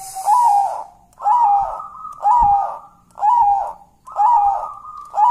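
Zebra dove cooing in a steady series, about one note a second, each note rising and then falling.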